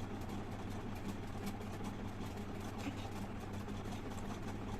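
A steady low background hum, with a few faint clicks.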